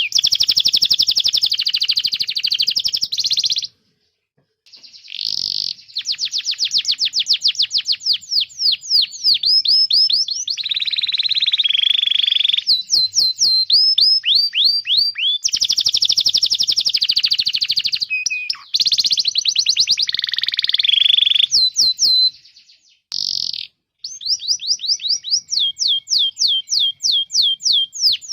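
Domestic canary singing: fast trills of short rising chirps, switching now and then to denser, lower rolling trills, with two brief pauses.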